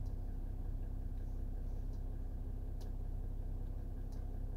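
Car engine idling, a steady low hum heard inside the cabin, with a couple of faint ticks near the end. No bass test tone is playing.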